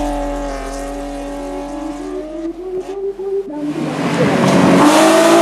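Rally car engine at high revs on a dirt road, fading steadily as the car pulls away. About two-thirds of the way in, a louder car engine comes in close, its revs rising and falling as it passes.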